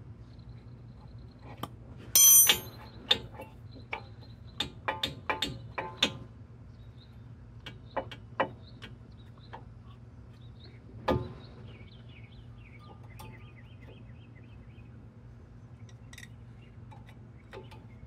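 Metal clinks and knocks from the 2012 Jeep Patriot's front brake caliper, bolts and hand tools being handled as the caliper is taken off: a bright ringing metallic clatter about two seconds in, a run of sharp clicks over the next few seconds, and a single knock near the middle.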